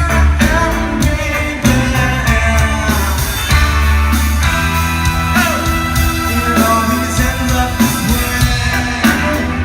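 Live reggae-rock band music: a singer over a heavy bass line, guitar and drums.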